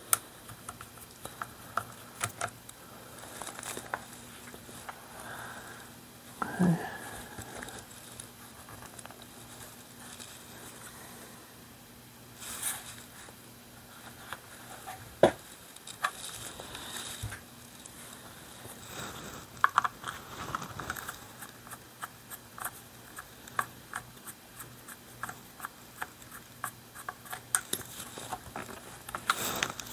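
Handling noise of a .22 pump rifle being taken apart with a screwdriver: scattered light clicks, taps and scrapes of metal parts and the tool, the sharpest click about halfway through.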